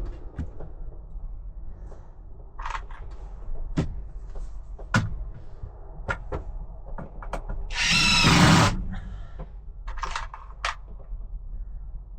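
Power drill driving a screw into a wooden board in one run of about a second, about two-thirds of the way in. Scattered knocks and clicks from handling the wood come before and after it.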